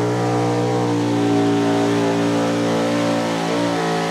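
A pulling vehicle's engine running hard at steady high revs, its pitch wavering slightly about three and a half seconds in.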